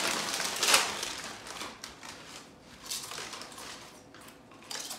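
Small foil snack bags of tortilla chips crinkling and rustling as they are torn open and handled, loudest just under a second in, then fainter scattered rustles.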